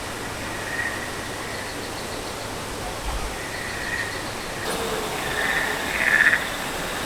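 Frog-like croaking calls, short trilling notes at a fairly high pitch, repeating every second or two over a steady background hiss. The loudest run of calls comes about six seconds in.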